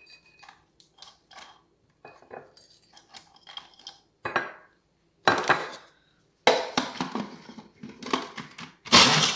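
Clinks, knocks and rattles of a glass dish and utensils as biscuits are loaded into a Moulinex chopper. Near the end the chopper's motor runs in a short loud burst, the first pulse of grinding the biscuits to a powder.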